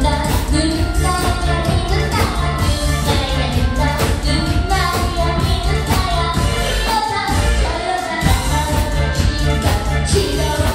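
A young girl singing a Korean song into a microphone, amplified over loud backing music with a steady beat. The bass drops out briefly about seven seconds in.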